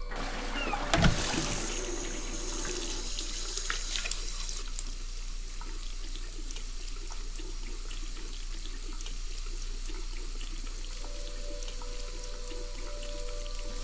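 Water running from a tap into a sink in a steady rush, after a sharp thump about a second in.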